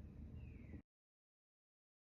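Near silence: faint room tone that cuts off to dead silence a little under a second in.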